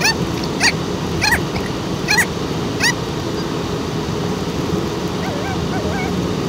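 Steady road and engine noise inside a moving car, with about five short, high-pitched rising yelps over the first three seconds, then softer wavering whines near the end.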